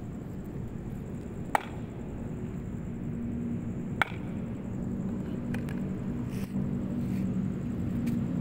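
Steady low background rumble with two sharp clicks, one about a second and a half in and one about four seconds in.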